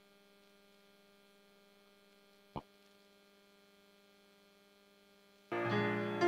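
Faint steady electrical hum with a single sharp click about two and a half seconds in. Near the end a piano abruptly starts playing.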